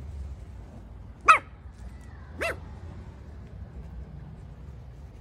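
Havanese puppy barking twice, two short barks about a second apart, the first much louder than the second.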